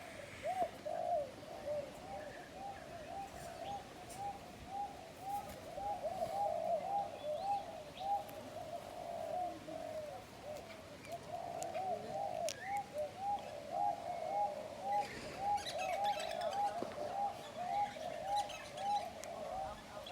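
A bird calling in a long run of short, arched notes, about two a second, with a brief pause around the middle.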